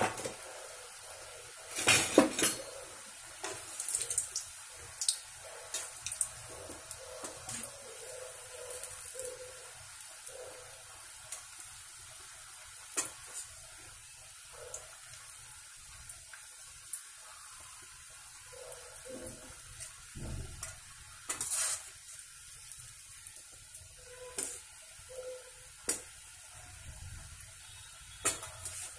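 Folded maida-dough pastries (madata kaja) deep-frying in oil on low heat in a steel pot, making a steady sizzling hiss. A steel slotted spoon now and then clinks and scrapes against the pot, with the loudest knocks about two seconds in and about twenty-one seconds in.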